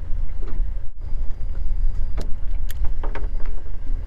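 Uneven low rumble of wind buffeting the microphone on a fishing boat at sea, with a few short clicks about two to three seconds in.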